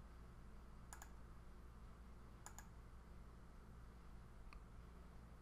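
Near silence with a faint steady low hum, broken by a few faint computer mouse clicks: one about a second in, a quick pair around two and a half seconds, one more a little later and another pair near the end.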